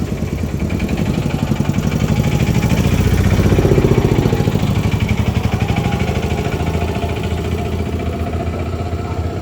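A motor engine running close by, growing louder over the first few seconds and then easing back.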